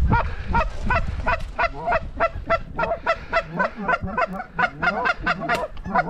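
Canada geese honking in a rapid, steady run of short honks, about three to four a second, with softer, lower wavering calls joining about halfway.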